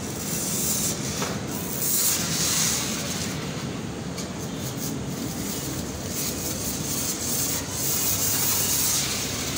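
Foam lance spraying foam onto a motorcycle, a hissing spray that swells and eases several times as the jet is worked over the bike, over a steady low machine hum.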